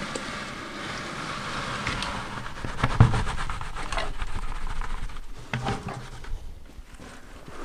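Wet concrete sliding and slopping out of a tipped plastic bucket, with a sharp knock about three seconds in. It grows quieter near the end.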